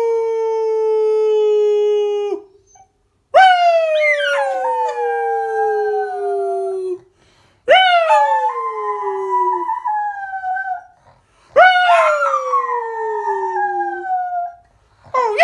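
Pocket beagle "aroo" howling. A long howl trails off about two seconds in, then three more howls follow a few seconds apart, with a fourth starting at the very end. Each one jumps up in pitch and slides slowly down over three to four seconds.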